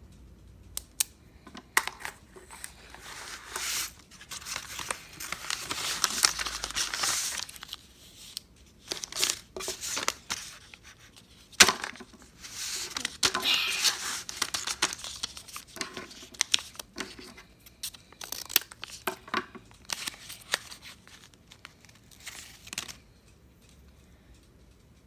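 Paper being torn and crinkled as a homemade paper bag is opened, in long rustling stretches broken by clicks and taps of small objects being handled; it stops a couple of seconds before the end.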